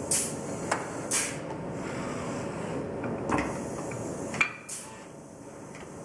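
ABB FRIDA dual-arm assembly robot at work: a steady hum from its moving arms, broken by about five short hissing bursts and clicks as its grippers act, with a sharp click about four and a half seconds in. The hum drops off soon after.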